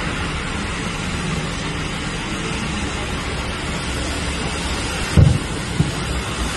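Steady outdoor background noise with wind on the microphone. A sharp low thump comes about five seconds in, and a fainter one just after.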